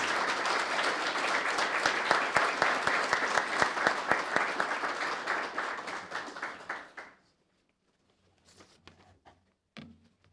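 Audience applauding, dense clapping that dies away about seven seconds in. A few faint handling sounds and a short soft thump follow near the end.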